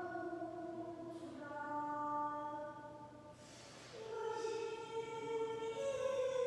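A sorikkun, a Korean traditional singer, singing unaccompanied in sori style: long held notes that bend and slide in pitch, with a short break for breath about three seconds in. The singing echoes in a large hall.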